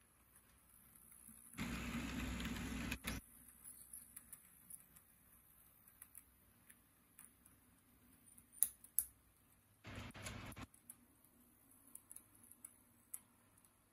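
Faint, irregular clicking of an H0m model train's wheels running over the track, broken by a brief burst of rustling noise about two seconds in and a shorter one about ten seconds in.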